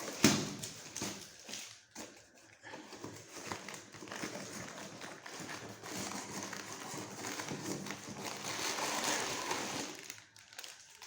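Parcel packaging being handled and torn open: continuous crinkling and rustling with small crackles, after a sharp bump right at the start.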